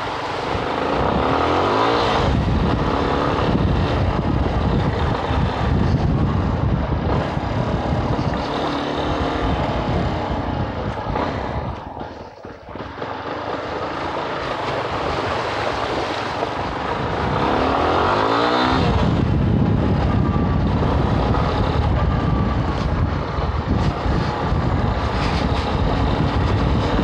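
Yamaha Ténéré 250's single-cylinder four-stroke engine running under throttle on a ride, mixed with a rush of wind noise. It revs up, rising in pitch, about two seconds in and again a little past the middle. It eases off briefly near the middle.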